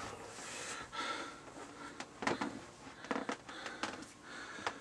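Faint handling noise: soft rustles and a few scattered clicks and knocks, with breathing.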